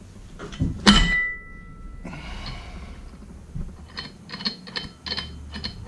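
A sharp metallic clank about a second in that rings briefly. Later, a ratchet wrench clicks in quick short strokes on the secondary clutch's bolt.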